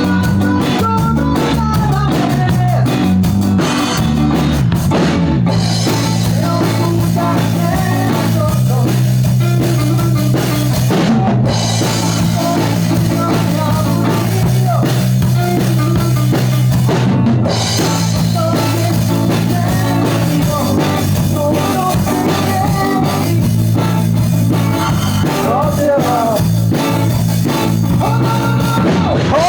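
Rock music with a drum kit, guitar and singing, with short breaks in the cymbals and treble about every six seconds.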